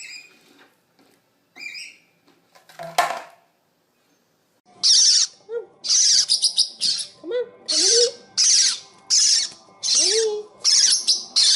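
A pet parrot giving a few faint chirps, then breaking into a loud, regular run of harsh screeches, a little more than one a second.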